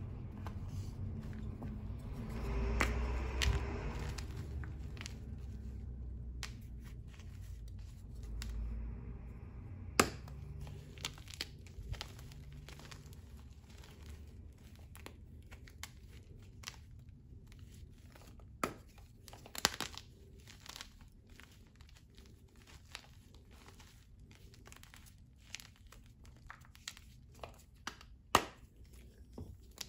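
Hands crumbling and squeezing blocks of gym chalk in a bowl of loose chalk powder: soft, gritty crunching and crumbling, with a few sharp snaps as pieces break off. For the first few seconds the hands rub and push through the loose powder.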